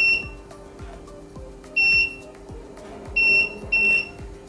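Aigostar air fryer's touch control panel beeping four times, one short high beep per press of the minus button as the cooking time is stepped down to 10 minutes, over a steady low hum.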